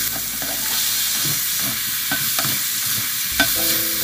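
Seafood and vegetables sizzling in a hot cast-iron pan while a spatula stir-fries them, its scrapes and taps against the pan scattered through the steady hiss, with one sharper click about three and a half seconds in.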